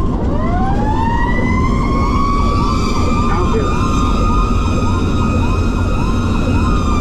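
Fire engine running with its sirens on: a mechanical siren winds up over the first couple of seconds, holds a steady high pitch, and begins to wind down near the end. Under it an electronic yelp siren sweeps rapidly over and over, with the truck's engine and road rumble beneath.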